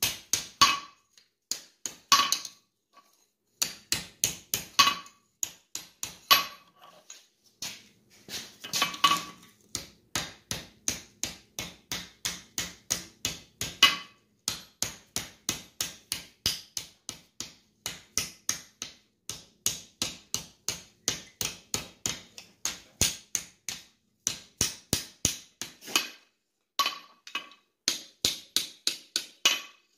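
Light, quick hammer blows on red-hot steel over the step of an anvil, curving a skillet handle into a half-round. The blows come in runs of about three a second with short pauses between, and some ring the anvil.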